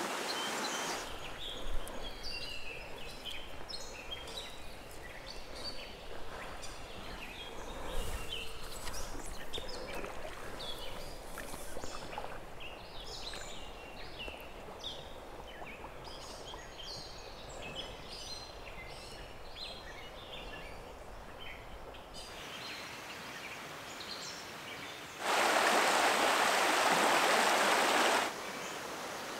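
Creek water running, with many songbirds chirping over it for most of the stretch. Near the end a fast riffle's rushing water comes in much louder for about three seconds, starting and stopping abruptly.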